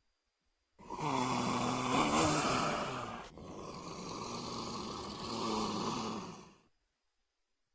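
Two creature vocalization sound effects for the giant prehistoric snake Titanoboa: a pitched growl with a hissing edge lasting about two and a half seconds, followed straight away by a second, slightly quieter one of about three seconds.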